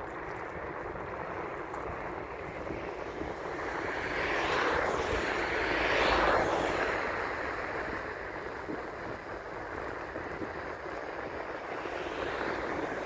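Distant jet airliner climbing away after takeoff: a steady engine roar that swells to its loudest about halfway through, then eases off.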